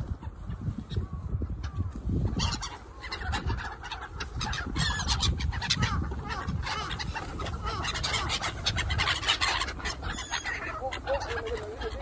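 A flock of black-headed gulls calling, a dense chatter of many overlapping harsh calls, busiest from about two seconds in until near the end.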